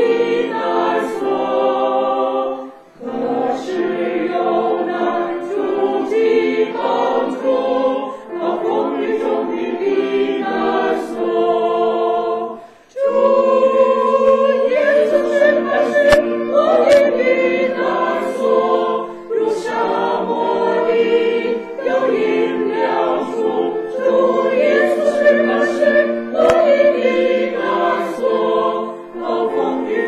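Mixed choir of men and women singing a hymn in Chinese in parts, with short breaks between phrases about three and thirteen seconds in.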